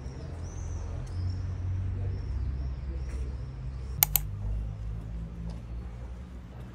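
Outdoor street ambience: a steady low rumble with faint high bird chirps over the first three seconds, and two sharp clicks close together about four seconds in.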